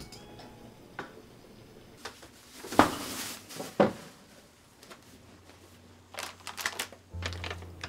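Things being handled at a kitchen counter: scattered clicks, a stretch of rustling with two sharp knocks about three and four seconds in, then a quick run of clicks and taps. A low steady hum starts near the end.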